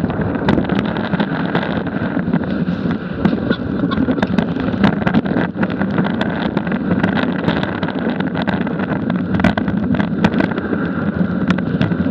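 Snowboard base sliding and scraping over packed snow, picked up through a camera mounted on the board: a steady rumbling hiss peppered with small clicks and knocks from bumps in the snow. Wind buffets the microphone.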